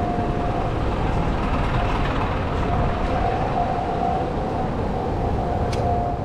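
Japanese railway level-crossing alarm ringing on as a steady high tone with short breaks, the crossing held closed after an accident, over a steady hum of street traffic.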